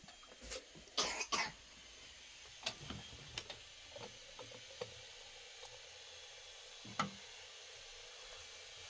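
A person coughing: two short coughs about a second in and another single one around seven seconds.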